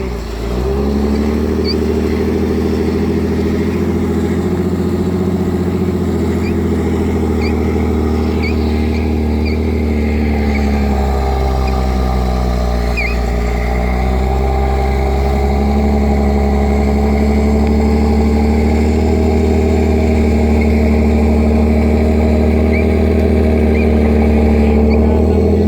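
Off-road vehicle's engine running steadily under load on a snowy trail. Its engine speed dips about eleven seconds in and climbs back a few seconds later.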